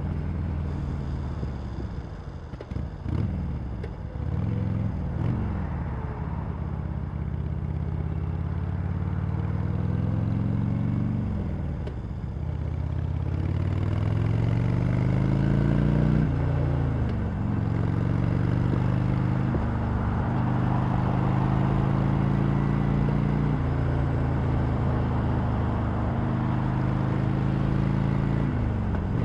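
Harley-Davidson Sportster Iron 883 air-cooled V-twin on its stock exhaust, pulling through the gears: the engine note climbs steadily, then drops sharply at each shift, about four times, after a few quick throttle blips in the first seconds.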